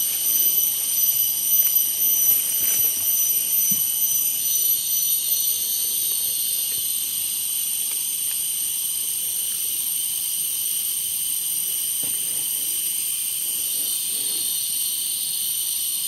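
Steady shrill insect chorus from the forest canopy, several high-pitched tones held together. It wavers a little in the first few seconds, then holds even.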